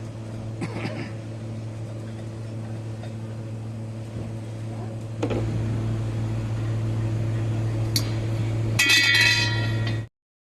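A steady machine hum with metal parts of a safety valve being handled. There is a knock about halfway, after which the hum grows louder, then a sharp click and a short metallic clink with ringing near the end. The sound cuts out abruptly just before the end.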